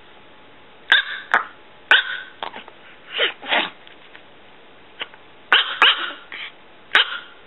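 Tiny chihuahua, under three pounds, barking: a string of sharp, high yaps at irregular intervals, with two longer barks that fall in pitch about three seconds in.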